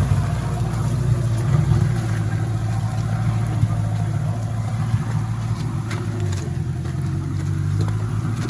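Off-road 4x4's engine running steadily, a constant low hum, with a few faint clicks scattered through it.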